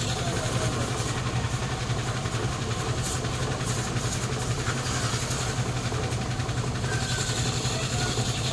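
An engine running steadily at idle, a low, even hum with a fast pulse.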